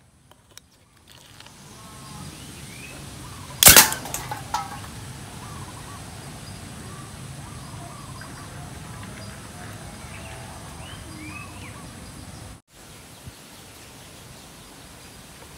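A homemade alcohol-fuelled can gun fires once with a single sharp bang about four seconds in, followed by a couple of faint clicks. Birds chirp in the background.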